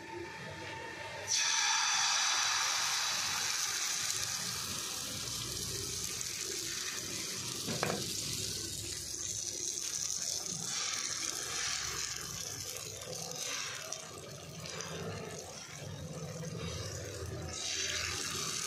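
Thin egg-and-milk batter sizzling on a hot, oiled nonstick tawa, the hiss starting suddenly about a second in as it is poured from a ladle and continuing while it is spread thin over the griddle.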